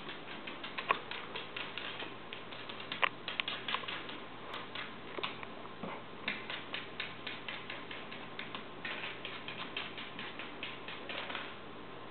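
Maltese dog's claws clicking on a hardwood floor in quick, uneven taps, about three to four a second at times, as it paws and steps around a piece of kibble. The tapping stops near the end.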